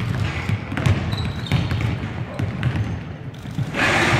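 Basketballs bouncing on a hardwood gym floor: repeated thuds with sharp clicks. Near the end, a louder wash of noise sets in.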